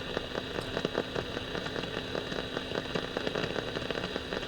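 AM radio receiver hissing and crackling with static, with a faint steady whistle underneath, as it is used to listen for the local oscillator of a second, faulty transistor radio.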